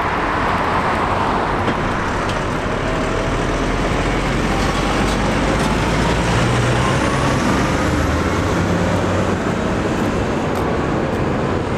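Diesel engines of large blue New Holland tractors driving past in a convoy: one goes by close, then more approach. The engine noise is steady, with a slowly rising whine around the middle as a tractor pulls up the lane.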